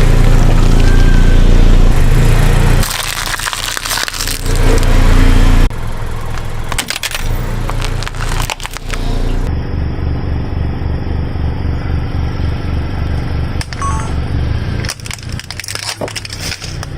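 A car's engine running with a heavy low rumble while its tyres crush objects, giving a run of sharp cracks and crunching, in several abrupt cuts.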